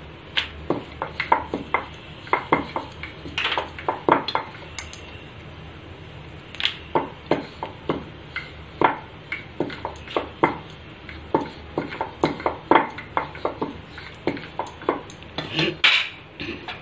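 Wooden rolling pin rolling out thepla dough on a rolling board: irregular clacks and knocks, with bangles clinking on the wrists. A louder clatter near the end as the rolling pin is set down on a metal plate.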